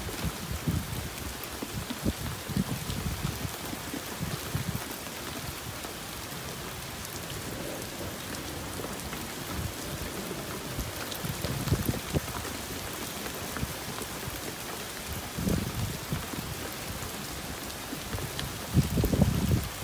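Steady summer rain falling, an even hiss, with irregular short low thumps every few seconds, the loudest near the end.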